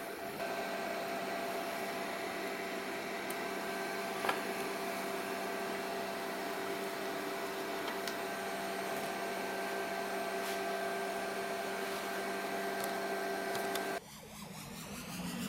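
Mikrosha 2000 induction heater running under load, a steady hum with several fixed whining tones over a fan-like hiss, with one small click about four seconds in. Near the end it cuts off and electronic music with a rising sweep begins.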